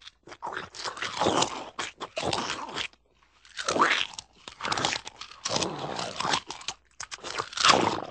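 Cartoon dog sound effects: a run of short, rough, gnawing and snarling bursts, a few with a sliding pitch. There is a brief pause about three seconds in, and the loudest burst comes near the end.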